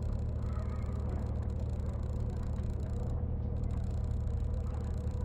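Steady low rumble of harbour-side background noise, like a distant idling engine or traffic, picked up by a phone camera's microphone.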